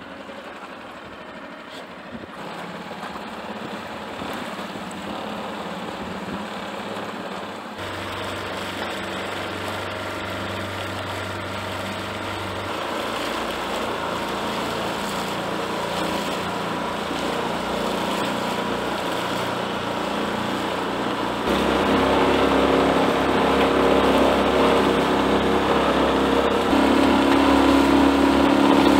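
6 HP Tohatsu outboard motor running steadily on a small catamaran skiff under way, over a steady hiss. The engine note changes and gets louder about eight seconds in, and steps up again about two-thirds of the way through.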